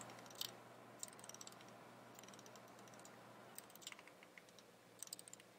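Faint clicks of the Schottkey Ratchet sequencer's rotary encoder being turned by hand, in a few short scattered runs over near silence.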